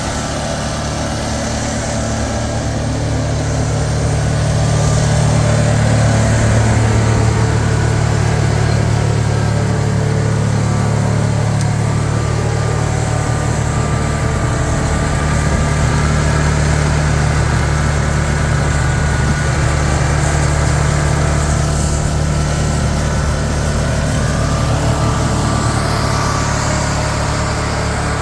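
Engine of a 35-horsepower cable-pulling machine running steadily while pulling underground power cable through conduit, with a low, even hum that swells a little a few seconds in.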